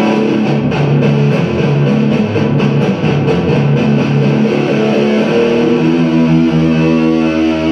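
Solid-body electric guitar played through a small combo amplifier: picked and strummed chords, settling about two thirds of the way in on a held chord left to ring.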